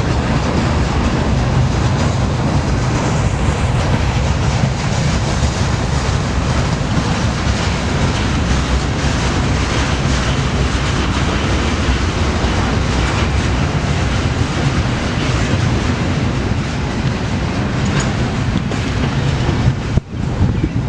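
Intermodal freight cars rolling past, their steel wheels clattering over the rail in a loud, steady rumble. The sound dips briefly near the end.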